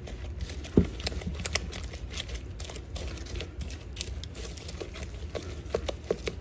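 Wooden spoon stirring an egg into soft creamed butter and sugar dough in a bowl: wet, sticky mixing with irregular light clicks and scrapes of the spoon against the bowl.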